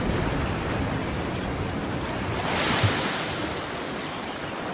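Sea swell washing against a rocky shore ledge, with wind on the microphone; one surge of wash swells up about two and a half seconds in.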